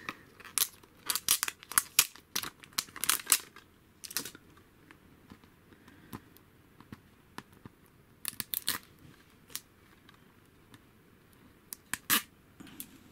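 Plastic packaging on a Blu-ray case being torn and crinkled off by hand, with sharp crackles in quick bunches over the first four seconds and a few more short bursts later on.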